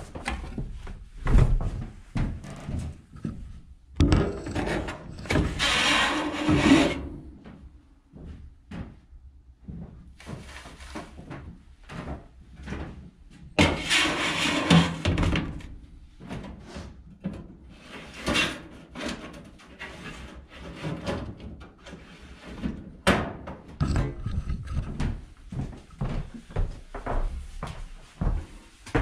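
Close handling noises: a string of knocks and thumps, with two longer stretches of scraping about four and fourteen seconds in, as a curved sheet-metal panel is handled.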